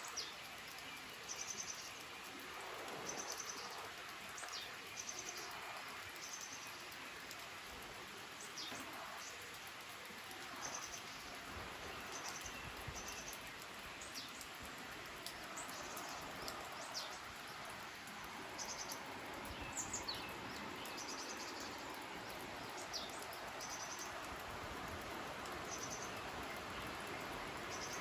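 A valley stream running with a steady rush while small birds call over it: short, high, repeated trills and chirps every second or two.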